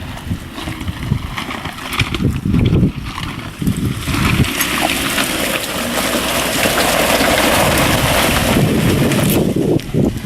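Jeep driving through a muddy water hole: engine rumble and knocks from the body, then about a second in after four a steady rush of water and mud splashing that lasts about five seconds before dropping away.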